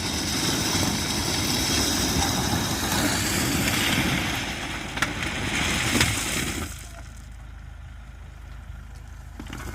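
SUV engine running on a gravel bank, with a loud rushing noise and a couple of sharp clicks. The sound drops off sharply about two-thirds of the way through.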